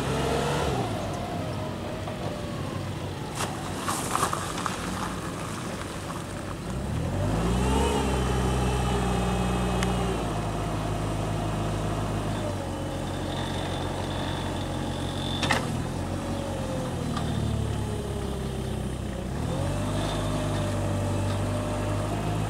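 Diesel engine of a Fiat/OM D23 forklift running, revving up about a third of the way in and again near the end, with a few sharp clacks.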